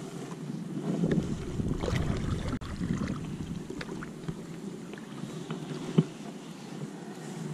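A kayak moving on the water: water swishing and lapping against the plastic hull, with low buffeting on the microphone during the first few seconds. A single sharp knock sounds about six seconds in.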